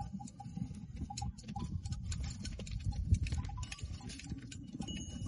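Hand shears snipping goat hair: many light, irregular clicks over a low, uneven rumble.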